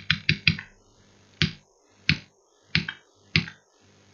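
Computer keyboard keys pressed one at a time, about eight sharp clicks. A quick run of four comes near the start, then single key presses follow roughly every two-thirds of a second.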